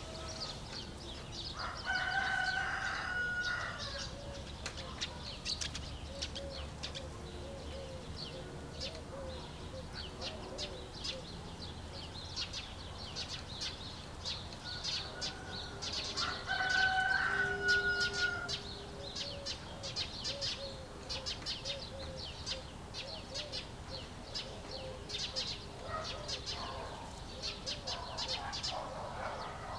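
A rooster crowing twice, about two seconds in and again about seventeen seconds in, over steady chirping of small songbirds and low clucking of hens.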